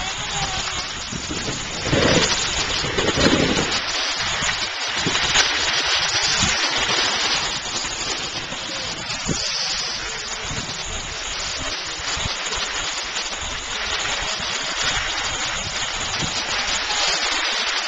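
Steady rushing noise of skiing downhill: skis sliding on snow and wind buffeting the camera's microphone, with louder swells about two and three seconds in.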